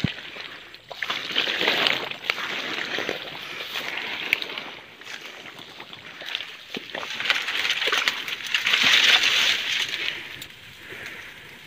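Dry grass, straw and thatch rustling and crackling in surges as someone pushes through it into a grass-covered hunting hide. The loudest rustling comes near the end.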